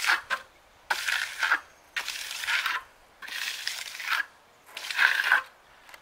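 A hand concrete groover scraping through wet concrete as it is pushed back and forth along a straight board to cut a control joint in the fresh slab. Five gritty scraping strokes, about one a second.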